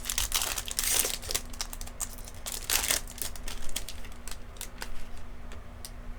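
Plastic-foil trading-card pack wrapper crinkling and tearing as a pack is opened, loudest in the first second and again near three seconds, followed by lighter clicks and flicks of cards being handled.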